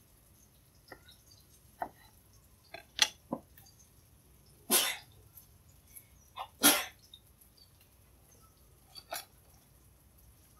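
Scattered knocks of a cleaver on a wooden chopping board as ginger is cut, several in the first three and a half seconds. Two louder, longer, rough sounds come about five and seven seconds in.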